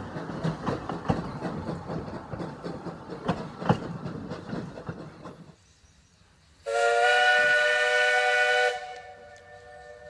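Narrow-gauge railway coaches rolling past, the wheels clicking over rail joints, until the sound cuts off after about five seconds. After a short pause, the Baldwin steam locomotive's whistle blows loudly for about two seconds, several notes sounding together as a chord, then drops to a softer lingering tone.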